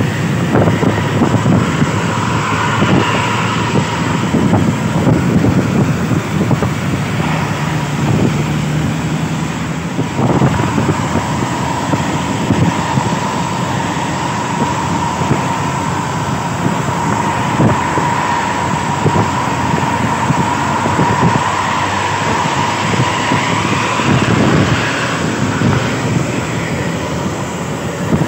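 Road and traffic noise from driving in close pursuit of an intercity bus, with wind buffeting the microphone. A steady high whine runs through the middle stretch.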